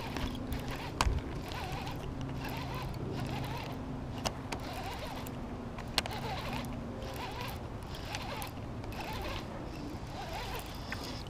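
Shimano baitcasting reel being cranked steadily to reel in a small hooked fish, its handle and gears giving a continuous mechanical whir, with a few sharp clicks along the way and a low hum underneath.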